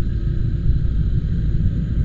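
Steady low engine rumble with a constant hum running underneath, unchanging throughout.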